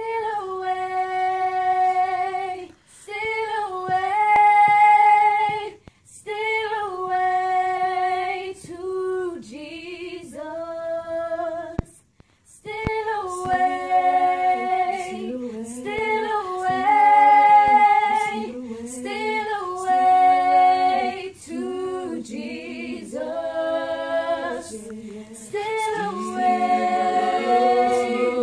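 A small group of teenage voices singing a cappella in held vowel notes. A single high line carries the phrases at first, breaking off briefly a few times, and lower harmony parts join about halfway through.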